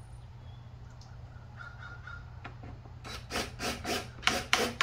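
Wooden boards rubbing and scraping against each other: a run of short scraping strokes, about four a second, starting about three seconds in.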